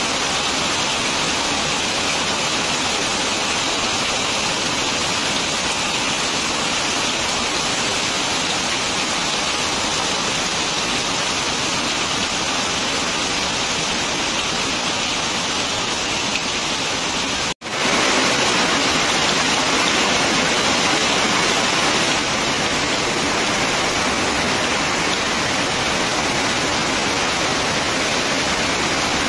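Heavy rain falling, a dense, steady hiss. It cuts out for an instant about 18 seconds in, then returns slightly louder for a few seconds.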